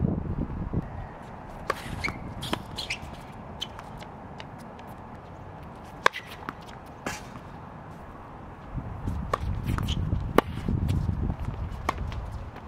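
Tennis ball bounces and racket strikes on a hard court: a scatter of sharp pops, the loudest about halfway through, mixed with shuffling footsteps. A low rumble rises in the last third.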